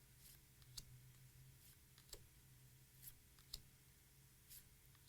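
Faint, scattered clicks of baseball trading cards being handled and flipped through one by one, about eight irregular ticks over a low steady hum.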